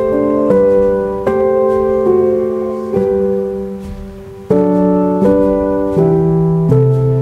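Background piano music: slow sustained chords struck about once a second, with a short fading lull in the middle.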